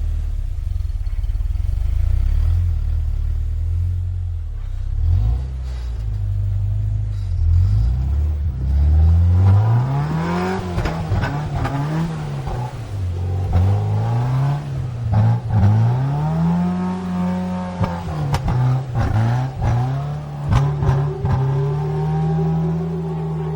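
Jeep engine with a low steady rumble that gives way, about a third of the way in, to repeated revving up and down as it climbs the trail. Sharp knocks and scrapes come in the last few seconds.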